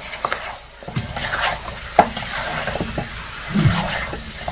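A spatula stirs chunks of masala-coated chicken in a nonstick pan over oil, with a sizzle underneath and irregular scrapes and knocks of the spatula against the pan. The loudest knock comes about two seconds in.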